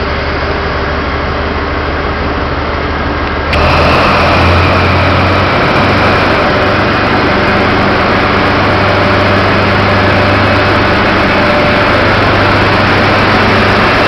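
Class 43 HST power car's Paxman Valenta V12 diesel engine running loud and steady as the train pulls away. Its note steps up suddenly about three and a half seconds in and then holds.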